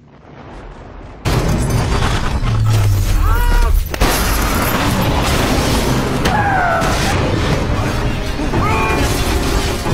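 Movie car-crash sequence with a vehicle flipping overhead: a sudden loud onset about a second in, then heavy booming impacts and crashing under a dramatic music score, with several short rise-and-fall squeals.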